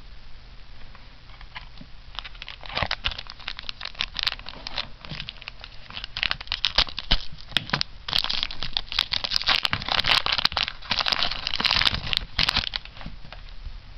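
Foil trading-card booster-pack wrapper being torn open and crinkled by hand. Scattered crackles come first, then dense crinkling of the foil for about five seconds toward the end.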